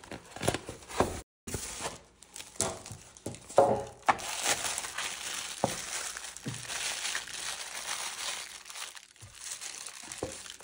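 Clear plastic bags crinkling as they are handled, with a few short knocks from styrofoam packing in the first seconds.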